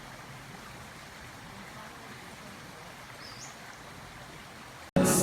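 Steady outdoor background noise, an even rushing hiss, with one brief high rising chirp about three seconds in. It cuts off suddenly near the end into loud music.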